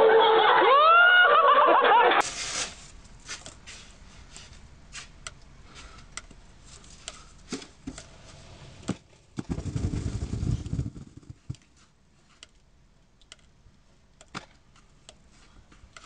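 Voices crying out with swooping pitch, cut off after about two seconds. Then, after scattered light scrapes and taps, a mass of snow comes off the roof and lands on the shovelled walk with a low, heavy rush lasting just over a second, about halfway through.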